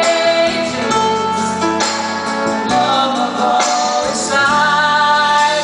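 Live band playing with a woman singing lead through a PA, her sustained sung notes over the band's accompaniment.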